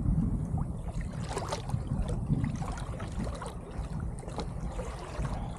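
Wind rumbling on the microphone in a kayak on the water, with a few light clicks and knocks.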